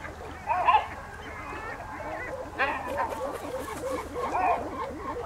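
A flock of birds calling at once: a steady din of many short, overlapping honking calls, with louder, nearer calls about half a second in and again a little past halfway.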